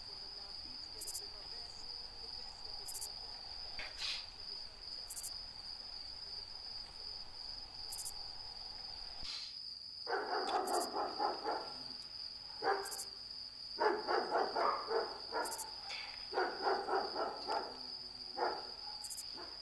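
Steady high-pitched chirring of crickets as night ambience. From about halfway, low indistinct voices come in, in short broken phrases.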